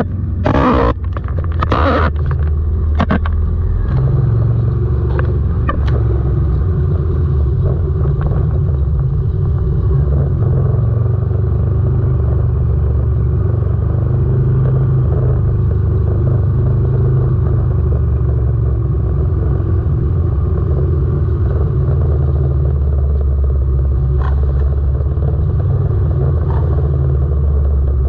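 Motorcycle engine running steadily at low parade speed: a constant low drone, with a few sharp knocks in the first few seconds.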